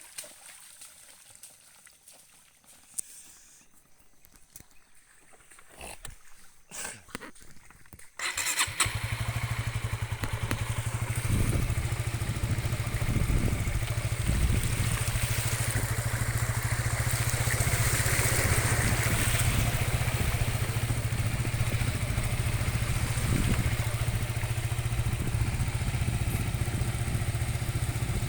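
Motorcycle engine running steadily, cutting in abruptly about eight seconds in after a quiet stretch with a few faint clicks.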